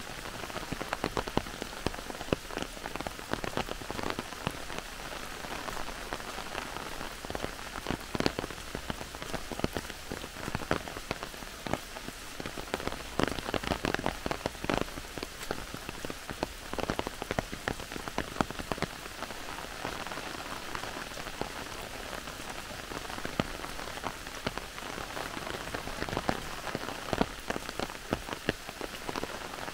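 Heavy rain falling on forest foliage: a steady hiss with frequent sharp, irregular drop strikes throughout.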